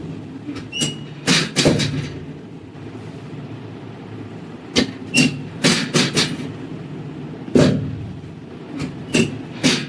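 A run of sharp knocks and clicks in irregular groups of two to five, one heavier knock near the end, a few with a brief high squeak, over a steady low hum: handling and knocks during a chiropractic adjustment.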